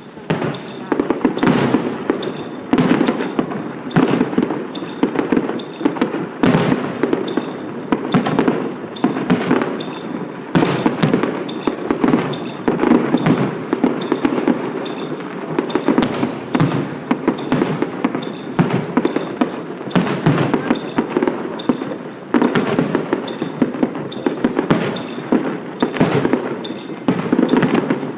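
Fireworks going off without pause: a dense run of cracks and pops, with sharper bangs standing out every second or two.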